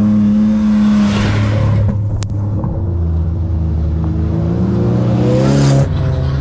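Off-road vehicle's engine revving as it drives through soft sand: the revs hold, dip, climb again and fall away sharply near the end. A single sharp click comes about two seconds in.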